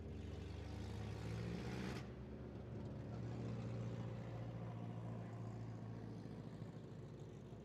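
Engines of several stock cars running as the cars lap a dirt oval track. A rushing noise over them stops abruptly about two seconds in.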